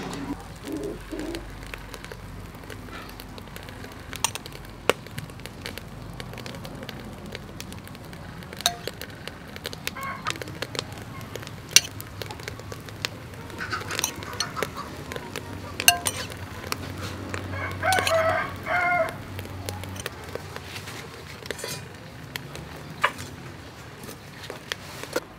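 A rooster crowing, one long crow a little past the middle, over scattered sharp clicks.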